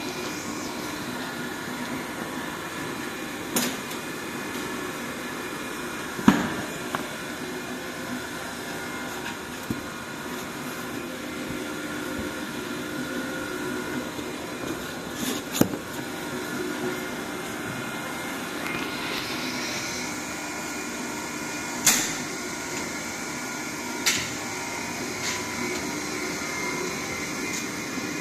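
DEM IC 4520 MVRE foil-sealing and shrink-wrap machine running with a steady blower noise, broken by several sharp clacks. A higher hiss joins about two-thirds of the way through.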